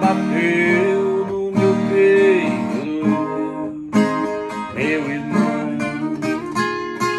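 Nylon-string classical guitar playing an instrumental passage, with strummed chords and picked notes ringing on.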